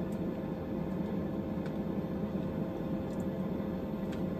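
Air fryer's fan running with a steady hum during preheat, with a few faint light clicks of hands working over it.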